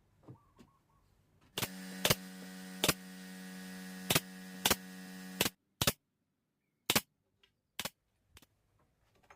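Pneumatic nail gun firing about ten sharp shots at irregular intervals. A steady hum runs under the first six and stops about five and a half seconds in.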